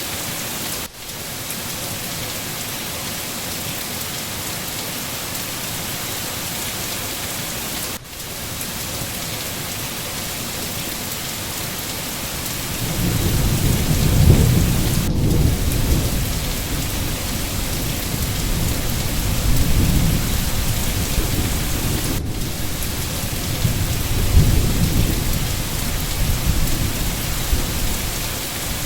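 Steady rain falling in a forest, an even hiss. About halfway through, a long low rumble of thunder rolls in and swells and fades in waves for the rest of the time. There are a few split-second dips in the sound.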